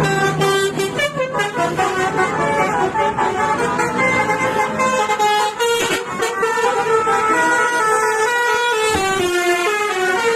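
Bus musical air horn (klakson basuri) playing a tune of quick, stepping notes.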